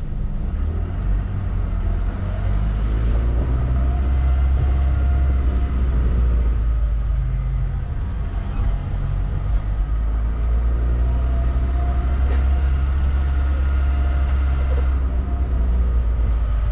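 Car driving along a road: a steady low rumble of engine and road noise, with a faint engine tone that comes and goes.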